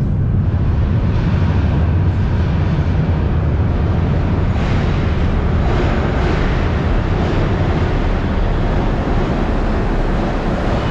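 Metro train approaching through the tunnel: a steady, loud low rumble echoing along the underground platform, with a few knocks and more rail noise from about halfway in as it nears.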